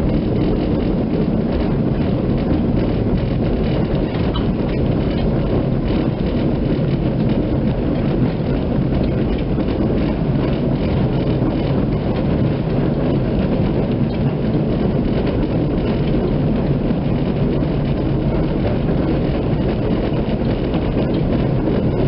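Kirnitzschtalbahn tram running along its track, heard from inside the car: a steady rumble of the running gear and wheels on the rails, with faint clicks.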